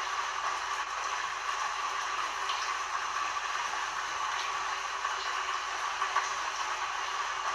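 Heavy rain falling: a steady hiss with a few faint drop ticks and no thunder.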